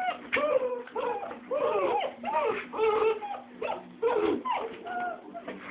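Young puppies whimpering and yelping in play, a quick string of short, high cries several a second, more than one pup at a time.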